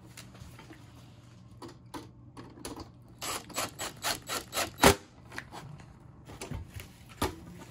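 Yellow DeWalt cordless drill/driver driving a small screw into a wiring terminal block: a run of quick clicks, about six a second, ending in one loud click about the middle, with scattered clicks of tools and parts being handled.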